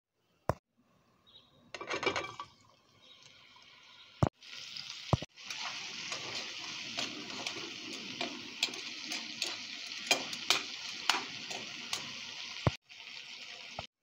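Spice-coated pieces frying in hot oil in a pan: a steady sizzle full of small crackles and pops that stops abruptly near the end. A short noisy burst comes about two seconds in.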